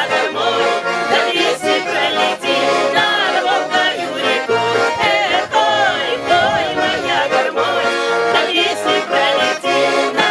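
Folk tune played on an accordion, a busy ornamented melody over a steady repeating bass.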